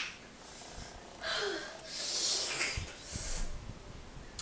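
A woman breathing hard through her mouth in several noisy, hissing breaths, her mouth burning from extra-spicy noodles.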